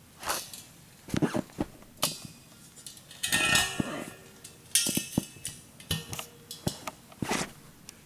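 Knocks, clinks and a brief scrape as the metal base of a propane heater is set down and shifted on concrete blocks.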